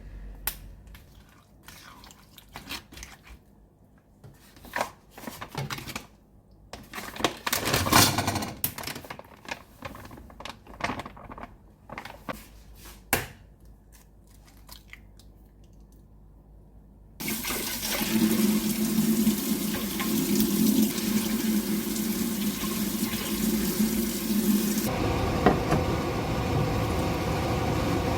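Kitchen clatter: scattered knocks and clicks of handling dishes and utensils. About two-thirds through, a steady rush of running water starts suddenly, like a tap running into a sink. Near the end it gives way to a different steady hum.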